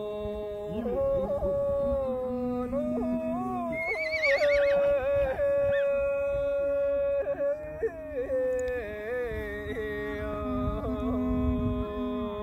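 Background music: a slow melody of long held notes that slide and waver between pitches, over a low steady drone.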